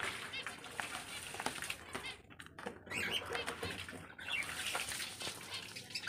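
Pet cockatiels fluttering and flapping their wings in a wire cage, with rustling and small clicks throughout. Short bird chirps come in about halfway through and again near the end.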